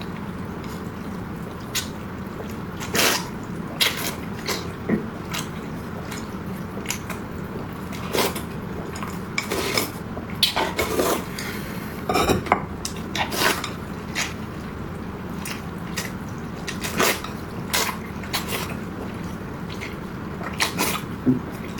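Eating sounds: utensils clicking irregularly against a bowl, with wet slurping and chewing of noodles.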